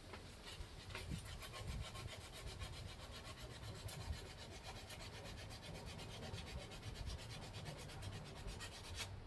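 Sandpaper rubbing on a part of a window box fan in quick, even back-and-forth strokes, stopping abruptly about nine seconds in.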